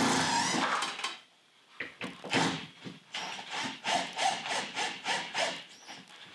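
Cordless drill driving a long screw up through a ceiling: a steady grinding run for about the first second, then after a short pause a string of short stop-start bursts.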